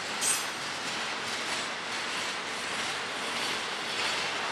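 Double-stack intermodal well cars of a Florida East Coast freight train rolling past, a steady noise of steel wheels on rail. There is one brief, sharp high-pitched screech just after the start.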